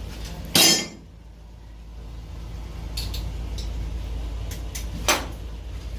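Steady low machinery hum in a boat's engine room, with a few sharp metallic clicks and two short loud bursts of noise, the first about half a second in and the louder of the two.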